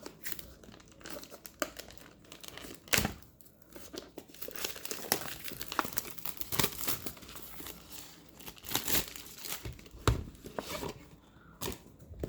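Plastic shrink-wrap being torn off a card box and crumpled: irregular crinkling with several sharper, louder rips.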